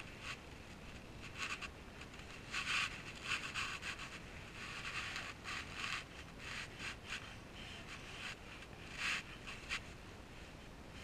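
Irregular short rustles and scrapes from a person moving close to the microphone, over a faint steady hiss. The loudest rustles come about two and a half seconds in and again about nine seconds in.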